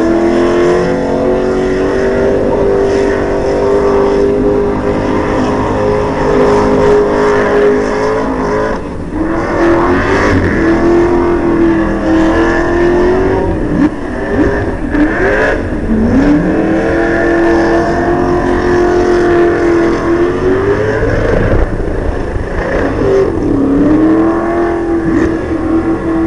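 Burnout cars' engines held at high revs while the rear tyres spin and smoke in a burnout. The steady high engine note drops and climbs back up several times, over a rumbling noise.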